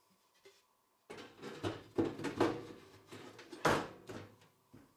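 Gypsum fibre board plate being fitted into a painted steel box, scraping and knocking against the metal sides and bottom in a series of irregular knocks, the loudest a little over three and a half seconds in.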